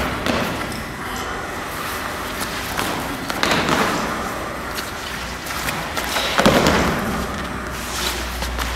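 Dancers' feet and bodies thudding and scuffing on a wooden floor, with two longer scraping slides, one in the middle and one about two thirds through, over a low steady hum.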